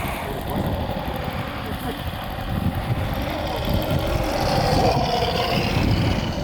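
Engine sound of a radio-controlled model warplane, swelling about four to six seconds in, over wind rumbling on the microphone.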